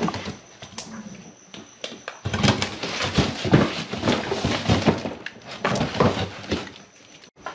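A German shepherd nosing and shoving a cardboard box of plastic balls along a wooden floor. There are scattered light knocks at first, then from about two seconds in a busy run of cardboard scraping and rustling, scuffs and knocks.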